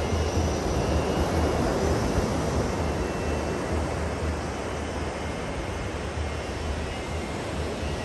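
Small surf breaking and washing up a sandy beach: a steady rush that swells over the first few seconds and then eases, over a constant low rumble.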